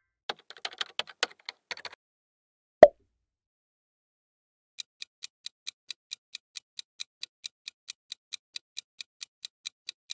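Countdown-timer tick sound effect: a steady train of short ticks, about four a second, starting about five seconds in. Before it comes a quick spatter of small clicks in the first two seconds and a single sharp pop near three seconds, the loudest sound here.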